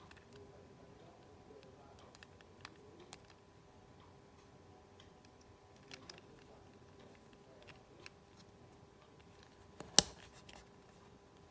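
Light plastic clicks and ticks of a Beyblade's red SW145 (Switch145) track part being handled and turned in the fingers, with one sharp louder click about ten seconds in. A faint steady hum runs underneath.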